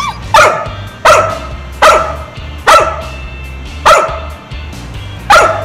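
A dog barking six single barks, about a second apart, counting out the answer to "three times two" in a trained arithmetic trick.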